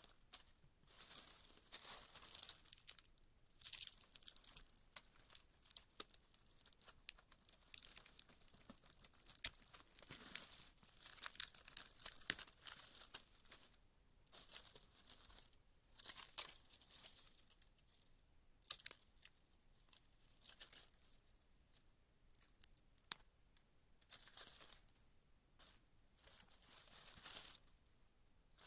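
Twigs snapping and cracking amid rustling leaves, in uneven bursts of crisp rustles punctuated by sharp snaps, several of them loud single cracks.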